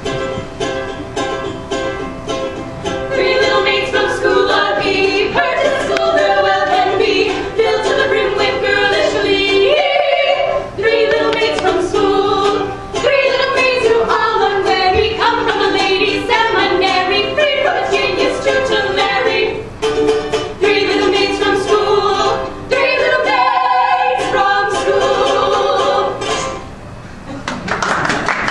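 A song performed live: voices singing over a strummed plucked-string accompaniment. It ends near the end, and applause breaks out.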